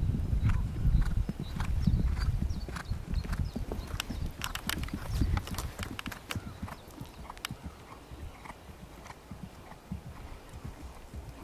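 Hoofbeats of a cantering horse on turf, heavy and close for the first few seconds, then fainter and lighter.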